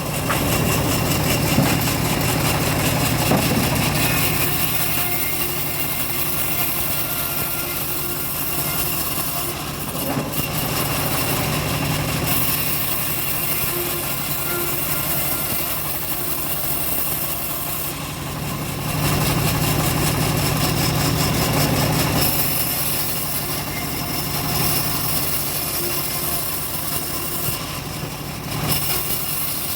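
Engine-driven home-built bandsaw sawmill running steadily as it saws teak, growing louder for a few seconds near the start and again about two-thirds of the way through.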